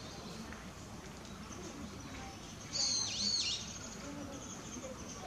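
A bird gives one shrill, high call about three seconds in, its pitch dipping down and back up twice, over faint steady outdoor background.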